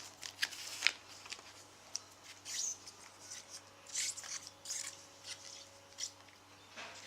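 A trading card pack being opened and its cards handled: short, irregular crinkles and rustles of wrapper and card stock.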